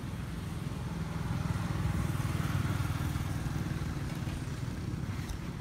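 A motor vehicle's engine running and passing: a low, rapidly pulsing rumble that swells about two seconds in and eases off toward the end.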